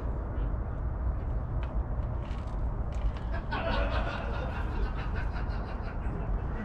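Steady low rumble of background noise, with people talking and laughing in the background for a second or two about halfway through.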